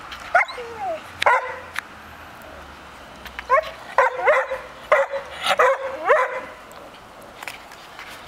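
A dog barking in short, high yips with gliding pitch: two near the start, then a quick run of about six in the middle.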